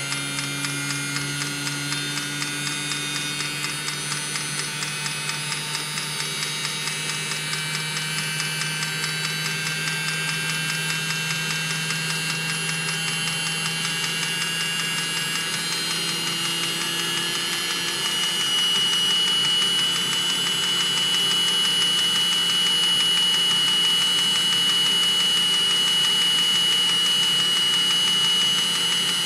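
Diesel-fired auxiliary coolant heater on a 2016 Mercedes Sprinter running, with a steady high jet-engine-like whine from its combustion blower. The whine rises slightly in pitch and gets louder a little past halfway, over fast regular ticking in the first several seconds.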